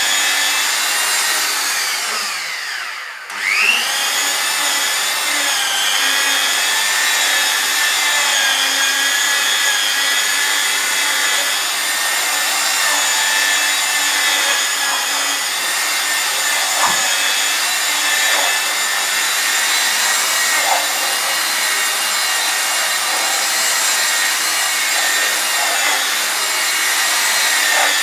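Electric rotary car polisher running with a foam pad on car paintwork, a steady high whine. About two seconds in the motor slows and its whine falls, then it speeds back up a second later.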